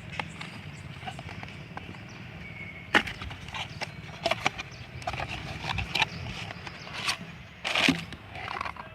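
Handling noise from unboxing: scattered sharp clicks and taps, with a short rustle near the end, over a low background hum.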